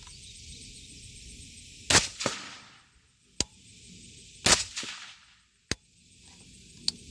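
Two suppressed rifle shots about two and a half seconds apart, each with a short echo, and a few sharp lighter clicks between and after them.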